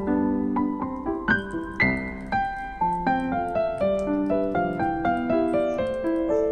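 Background piano music: a gentle melody of sustained notes played one after another.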